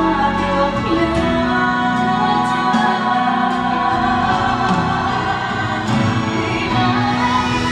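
Two women singing a ballad duet live into microphones, over backing music.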